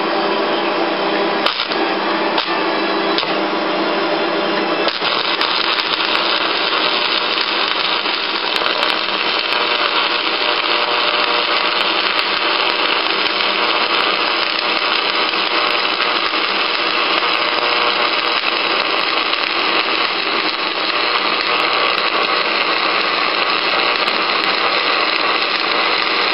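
Shielded metal arc (stick) welding with a 6013 electrode from a small Lincoln welder, running a bead along the butt joint between two steel plates. The arc gives a loud, steady hiss with scattered small pops, settling into its steady run about five seconds in.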